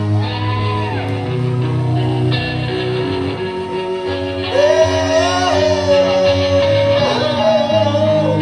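Rock band playing live: electric guitars through Marshall amps over bass and drums. Midway a lead line comes in on a Les Paul-style electric guitar, bending up into a long, wavering held note.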